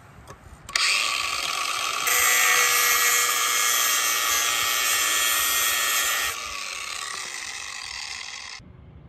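Cordless angle grinder starting up about a second in and grinding the steel edge of a riding-mower blade, smoothing out nicks from rocks; the grinding is loudest in the middle, then the grinder runs quieter and stops shortly before the end.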